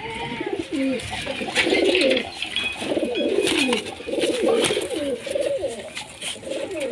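A flock of giribaz (Murshidabad high-flyer) pigeons cooing, many overlapping coos that swoop down and up in pitch.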